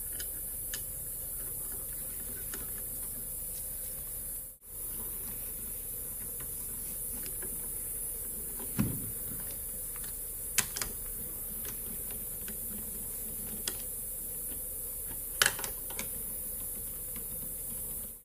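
Scattered light metallic clicks and taps as steel washers and nuts are set onto ARP cylinder-head studs and spun down by hand, with one duller thump about nine seconds in, over a steady background hiss.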